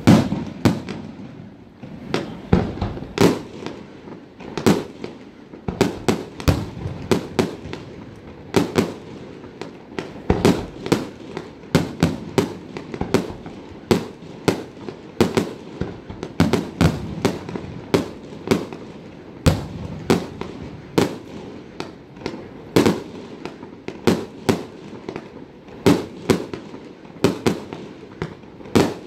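Aerial fireworks display: shells bursting one after another in a steady string of sharp bangs, about one or two a second.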